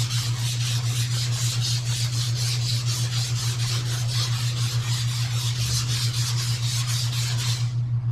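Sanding block pushed back and forth by hand over high-build primer on a car body panel, a rhythmic rasping at about four strokes a second that stops near the end. A steady low hum runs underneath.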